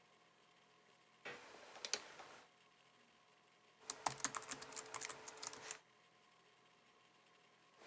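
Typing on a laptop keyboard: two short bursts of quick keystroke clicks, one about a second in and a longer one around four seconds in.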